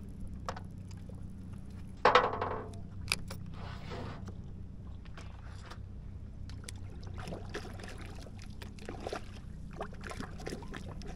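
Water sloshing and splashing as hands are dipped into the bay beside a float, over a steady low hum. A brief loud pitched call comes about two seconds in.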